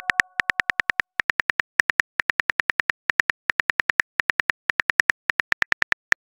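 Phone keyboard typing clicks: rapid short key taps, about eight a second, with brief pauses roughly every second between words.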